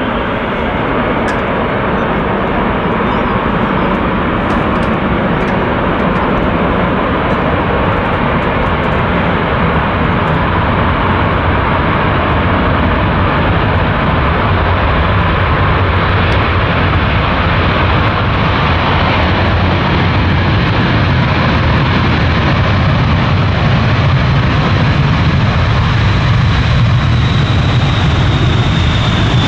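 Jet roar of a B-52H Stratofortress's eight turbofan engines at high power as the bomber rolls down the runway, growing slowly louder as it comes closer. A thin high whine runs through the roar and drops in pitch near the end as the aircraft passes.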